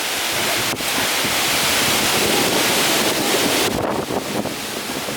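Strong storm wind blowing steadily, buffeting the microphone with a loud rushing noise.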